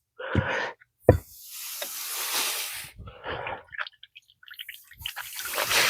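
A little water trickling and dripping out of a 1940s Ford truck transmission case, with a sharp tool click about a second in.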